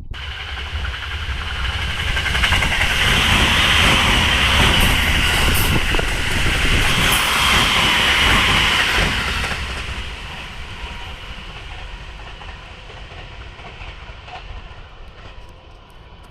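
A JR East 255 series electric multiple unit passing at speed, its wheels running on the rails. Loud through the middle of the pass, then fading steadily as it moves away over the last several seconds.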